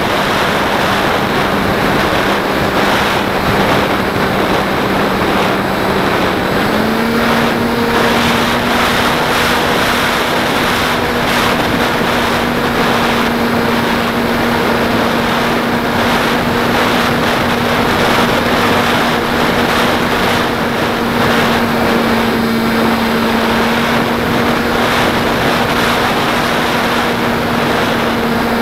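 Beta 1400 model plane in flight, recorded onboard: loud wind rush over the camera's microphone with the steady hum of the motor and propeller, which steps up slightly in pitch about six and a half seconds in as the throttle is opened a little.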